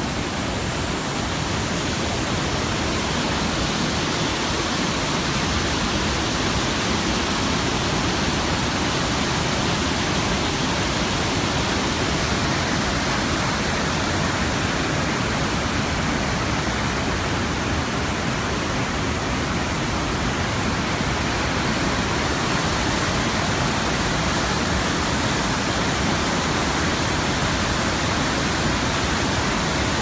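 Sogi Falls, a very wide waterfall spilling over dark boulders, and the white-water rapids below it: water rushing steadily.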